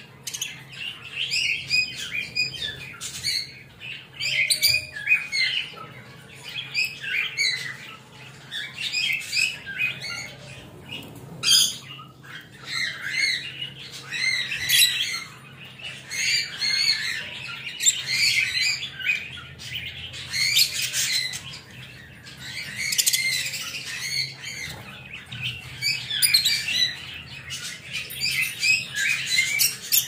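Budgies chattering with a continuous run of warbling chirps and squawks, in busy bursts every second or two.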